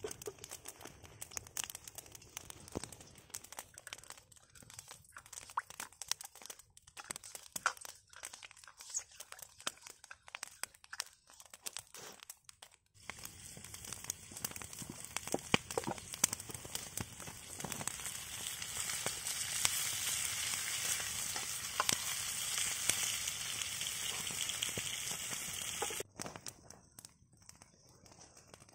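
Food frying in a wok over an open wood fire. First come sparse crackles and pops from the melting butter and the fire. After about 13 seconds there is a steady sizzle of sliced onions frying, which grows louder and then cuts off suddenly shortly before the end.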